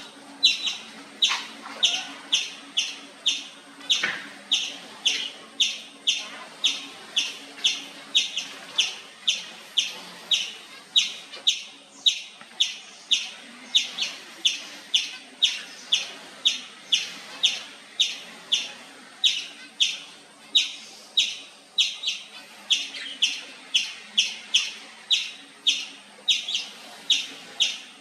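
Indian palm squirrel (three-striped palm squirrel) chirping nonstop: short, sharp, high-pitched chirps repeated evenly at about two a second.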